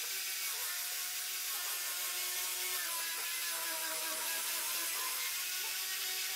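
Handheld angle grinder fitted with a sanding disc, running steadily as it sands a wooden tabletop: a motor whine that wavers slightly in pitch over the hiss of the abrasive on the wood.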